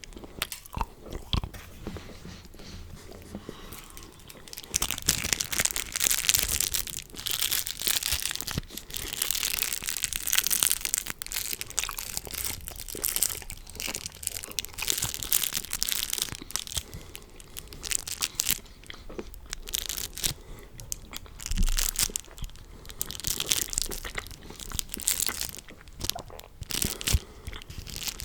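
Close-miked ASMR trigger sounds: dense crackling and crunching, quieter for the first few seconds, then louder and busier from about five seconds in.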